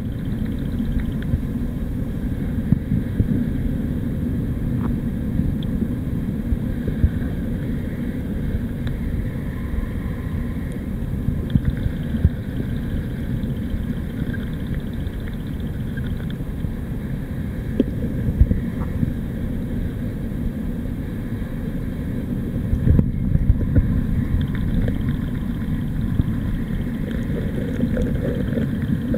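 Tide-pool water heard underwater: a steady low rumble of moving water, with a few faint clicks scattered through it.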